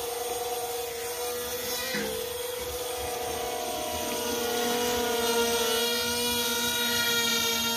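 JJRC M02 RC airplane's electric motor and propeller whining steadily as the plane holds a nose-up hover. The pitch dips briefly about two seconds in, and the whine gets louder past the middle.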